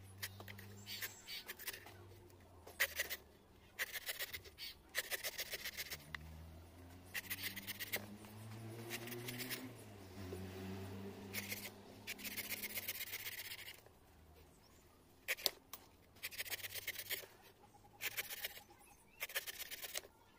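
A large knife shaving the husk off a green tender coconut in quick runs of rapid strokes, each run lasting about a second, with short pauses between.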